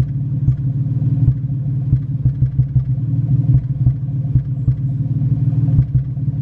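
Nissan 350Z's 3.5-litre V6 idling rough: a steady rumble broken by uneven stumbles and pulses, the sound of a cylinder misfiring.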